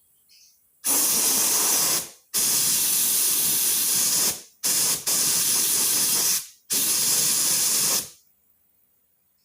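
Compressed air blowing out of a nozzle in four hissing blasts of about one to two seconds each, each starting abruptly and fading as the valve closes; the third is briefly broken.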